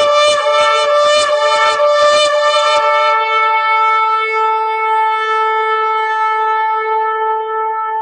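Shofar (ram's horn) being blown: a run of rapid short pulses on one note for about the first three seconds, then one long steady blast held on.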